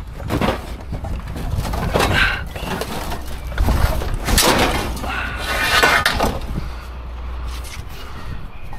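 Scrap metal bars being handled in a dumpster, knocking and clanking against other metal in irregular clatters, with a steady low rumble underneath.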